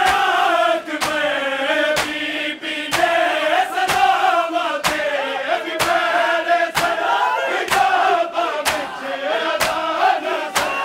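A large crowd of men loudly chanting a noha (Shia lament) in unison, over a steady beat of hands striking bare chests in matam about once a second.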